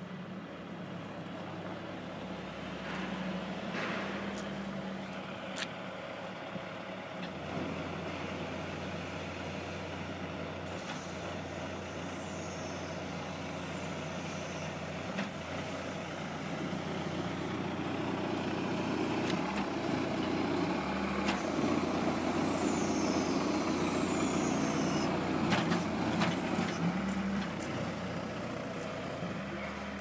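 Skid steer loader running while plowing snow. The engine drone shifts in pitch as it works and grows louder in the second half, with a few sharp clanks along the way.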